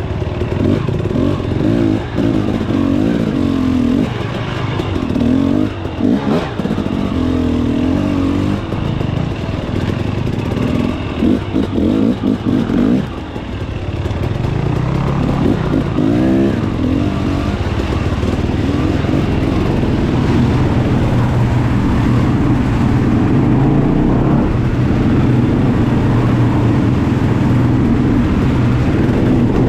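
Dirt bike engine revving up and down in quick bursts as it is ridden over rough ground. After a short dip about halfway through, the revs climb and settle into a steadier engine note.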